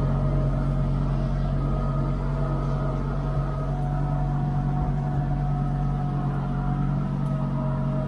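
International 1455 tractor's diesel engine running steadily at a constant speed, a low even hum with no change in pitch.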